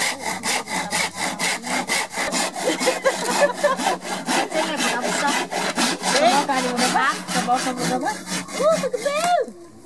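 Hand saw cutting through a bamboo pole in fast, even back-and-forth strokes, about four or five a second, stopping just before the end.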